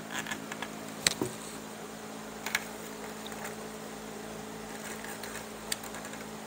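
A few short, sharp clicks and light rustles as a strand of chair cane is threaded over and under the woven cane and pulled through. A steady electrical hum sits underneath.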